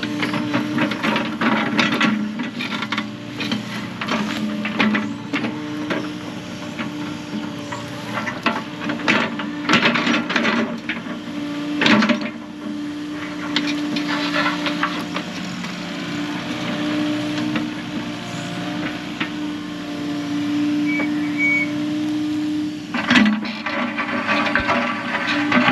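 Excavator digging a trench: its diesel engine and hydraulics run steadily, with repeated knocks and scraping clatter from the bucket working the soil.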